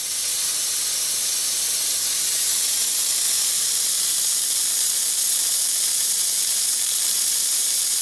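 Handheld electric fogger running and spraying mist, a steady, loud, high hiss.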